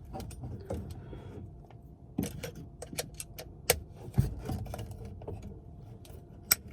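Scattered clicks, taps and rubbing of a small screw and the holder's little hand tool being worked against the plastic phone mount, with two sharper clicks, one in the middle and one near the end.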